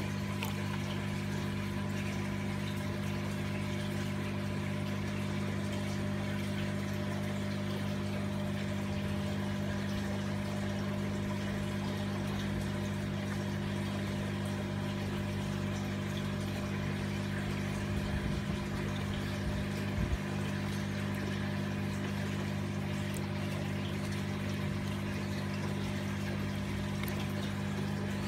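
Steady electric motor hum at a fixed low pitch, such as a small pump running, unchanged throughout, with two faint brief knocks about two-thirds of the way through.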